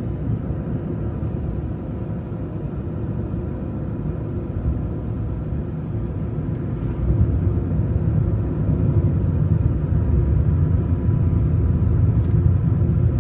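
A car driving on a paved road, heard from inside the cabin: a steady low rumble of road and engine noise that grows a little louder about halfway through.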